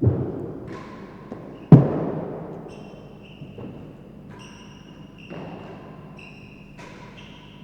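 Real tennis ball struck hard twice, under two seconds apart, the second hit the loudest, each echoing around the enclosed court. Fainter knocks and a run of short high squeaks follow.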